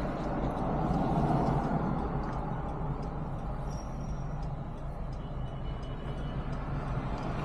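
Steady low rumble of vehicle and street noise heard from inside a car cabin.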